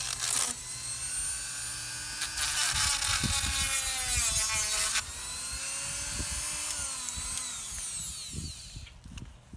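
Handheld Dremel-style rotary tool whining at high speed, its pitch wavering. Between about two and five seconds in it bears on the work with a harsh grinding noise and the whine sags under the load, and it winds down near the end.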